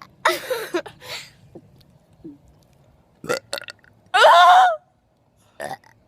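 A person burping, several burps in a row, the longest and loudest one about four seconds in.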